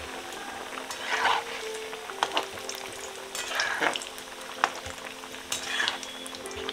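Potato-cauliflower samosas deep-frying in hot oil in a metal kadai, a steady bubbling sizzle. A slotted metal spoon stirs and turns them, scraping and clinking against the pan several times.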